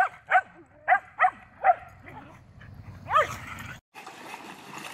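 Small dog barking in quick, high yips: five in the first two seconds, then one more about three seconds in. After an abrupt cut near the end comes a steady wash of flowing river water.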